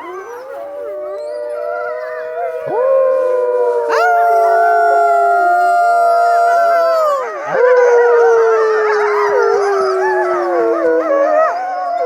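A chorus of wolves howling: several long howls overlap at different pitches, some held steady and some sliding slowly down, with new howls swooping in sharply about four and seven and a half seconds in.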